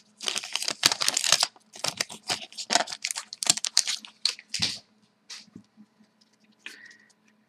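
A trading card pack wrapper being torn open and crinkled by hand: a quick run of tearing and crackling that dies down after about four and a half seconds.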